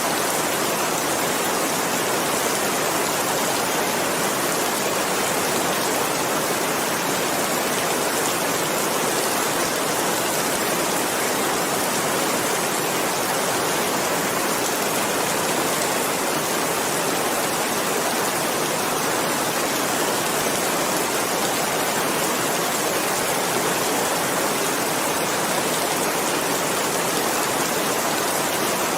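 Steady rain falling, a dense even hiss with no separate drops or thunder standing out.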